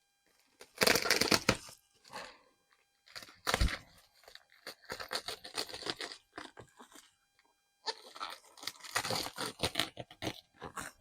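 Packaging being unwrapped by hand: bursts of crinkling, tearing and rustling, with a single sharp thump about three and a half seconds in.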